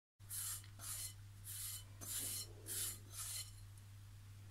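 A hand scraping sticky bread dough, flour mixed with cold water, out of a glass bowl: about six quick rubbing strokes in a row, stopping a second before the end.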